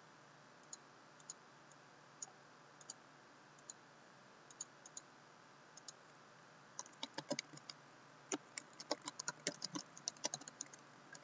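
Laptop keyboard keys being pressed: scattered single clicks at first, then quick typing over the last few seconds.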